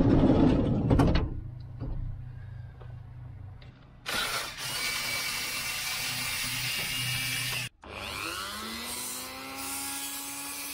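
Loud knocks, then a power tool cutting the opening for a power socket: it runs harshly for a few seconds, cuts off abruptly, then spins back up with a rising whine and cuts on.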